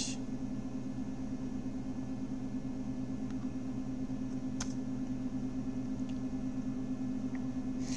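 Steady low background hum, with one faint click about halfway through.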